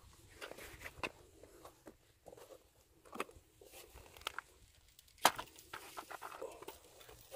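Handling noise: scattered clicks, taps and the rustle of cloth rubbing against a wooden rail, with one sharp knock about five seconds in.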